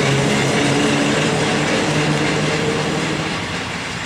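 PKP ET22 electric locomotive moving slowly while shunting: an electric hum of several pitches that step up and down, over the rumble of its wheels on the rails. The sound grows slowly quieter.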